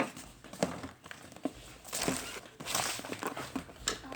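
Crinkling and handling noises from a digital blood pressure monitor and its packaging being unpacked, with scattered light taps and knocks.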